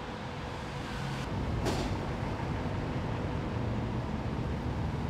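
Steady low rumble of vehicle noise that grows slightly louder about a second in, with one brief sharp click shortly after.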